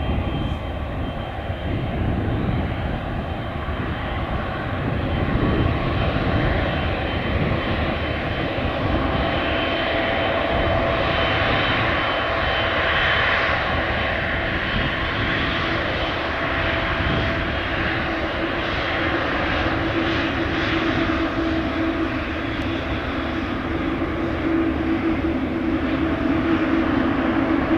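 Boeing 777F's twin GE90-115B turbofan engines running at taxi power as the freighter rolls by: a steady jet rumble with a held whine, growing a little louder near the end.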